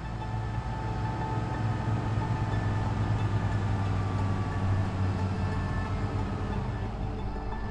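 A low, steady drone with sustained tones layered over it and a faint falling tone near the end, the ambient sound bed of a film soundtrack.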